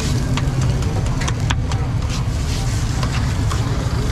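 Metal spatula scraping and clacking on a steel griddle as a scrambled egg mixture is chopped and pushed around, in irregular sharp strikes a few times a second, over a steady low rumble.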